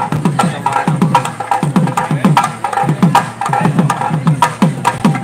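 Drums beaten in a steady, fast rhythm: low strokes about two or three a second, each sliding down in pitch, with sharp clicking strokes in between.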